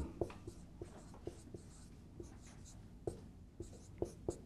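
Dry-erase marker writing on a whiteboard: a string of short, faint, irregular squeaks and taps as the word is drawn letter by letter.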